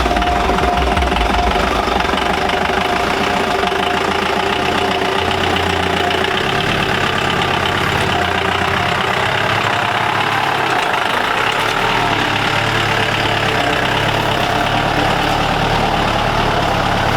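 Mahindra Marshal jeep's diesel engine pulling along a rough off-road track, with a dense clatter and rattle throughout. The engine note shifts a couple of times, about five seconds in and again past the middle.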